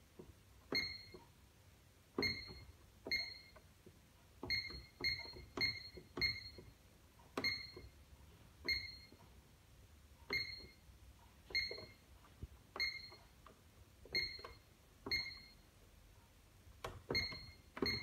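Pyronix Enforcer alarm keypad giving a short high beep with each button press as a password is keyed in, about seventeen times at an irregular pace of roughly one a second. Each beep comes with a faint click of the key.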